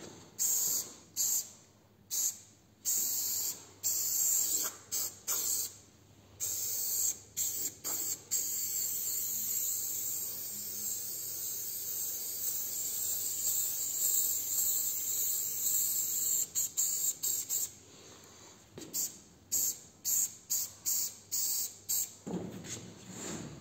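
Aerosol spray-paint can spraying in short hissing bursts, then one long continuous spray of about nine seconds in the middle, then quick short bursts again near the end.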